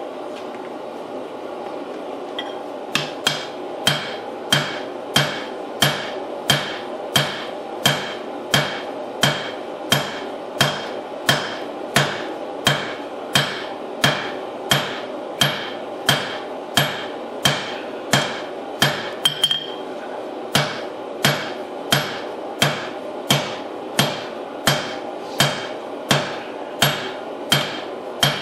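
A hand hammer strikes a hot damascus billet on a steel anvil in a steady rhythm, about three blows every two seconds, drawing the billet out. Each blow has a short metallic ring. The strikes begin about three seconds in and pause briefly past the middle, over a steady rushing noise.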